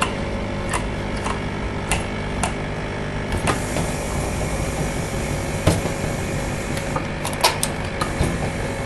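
Steam iron pressing a fabric fold on an ironing board: a steady hum underneath, with scattered light clicks and knocks as the iron is moved and set down.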